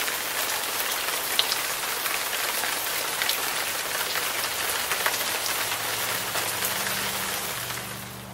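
Garden rock waterfall splashing: a steady rush of falling water full of small droplet patters. It fades near the end, as a faint low steady hum comes in.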